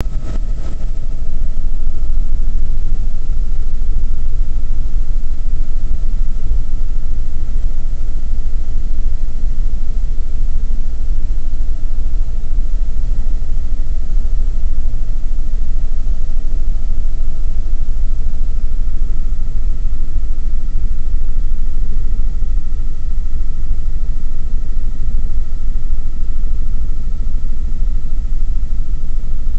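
Helicopter cabin noise in flight: a loud, steady low rotor and engine rumble with a steady whine on top.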